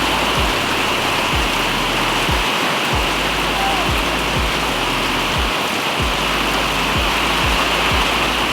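Heavy rain pouring steadily, over background music with a low, regular kick-drum beat.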